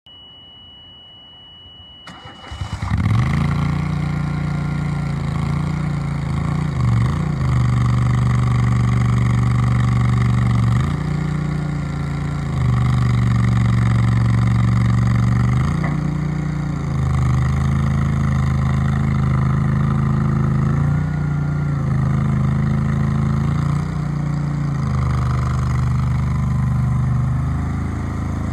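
A steady high tone sounds for the first two and a half seconds. Then the Bozer 427 skid steer loader's engine starts and runs, its pitch stepping up and down every few seconds as it is revved or put under load.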